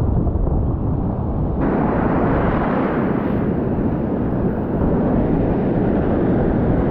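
Wind rumbling on the microphone over the steady wash of breaking ocean surf. The hiss grows brighter about a second and a half in.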